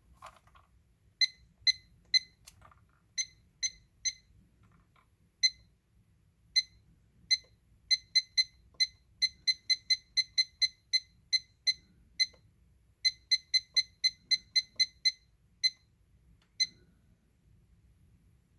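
IKEA KLOCKIS clock-timer beeping: short, high single beeps, all the same pitch, at uneven intervals, coming in quick runs of three or four a second through the middle.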